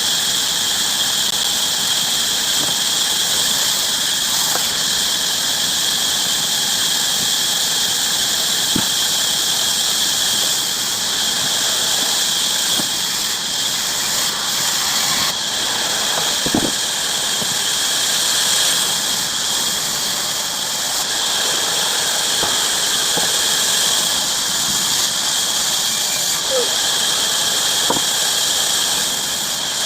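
Bandsaw cutting through wood: a steady high-pitched squeal with hiss from the blade.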